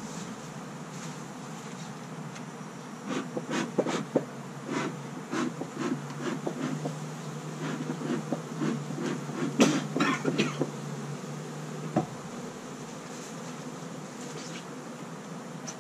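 Honeybees buzzing around an open hive, with a bee smoker's bellows pumped in quick puffs, about two a second, from about three seconds in until about eleven seconds. A single knock about twelve seconds in.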